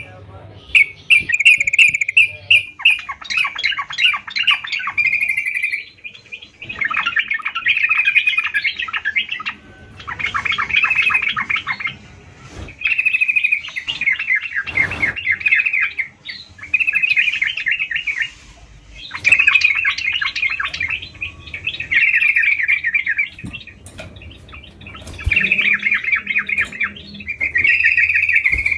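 Yellow-vented bulbul (trucukan) singing in full, lively song: short bubbly phrases of rapid chattering notes, each a second or two long, repeated over and over with brief pauses between.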